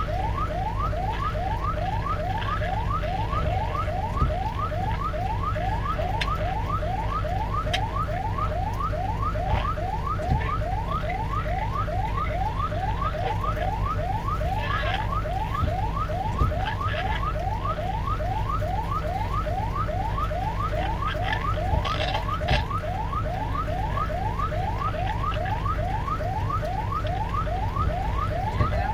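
An electronic alarm repeats a quick rising whoop about three times a second without a break, over a steady low hum.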